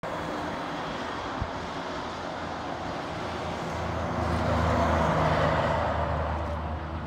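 Road traffic, with a diesel truck's engine passing close: the engine drone builds to a peak about five seconds in, then eases off.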